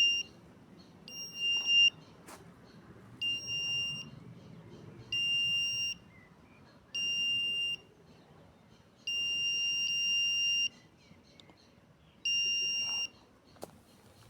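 Electronic beeping from a long-range metal locator: six beeps about two seconds apart, each a steady two-tone high beep, the fifth one held longer. A faint click comes about two seconds in and another near the end.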